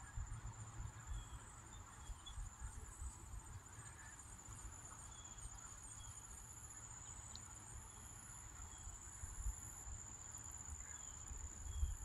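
Faint, steady high-pitched trill of summer insects, with faint short chirps about once a second and a low rumble of wind on the microphone.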